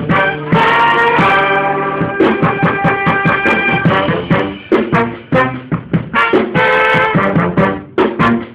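Brass band playing live: trumpets, trombones and a sousaphone. It holds chords for about the first two seconds, then plays short, punchy phrases over sharp percussive hits.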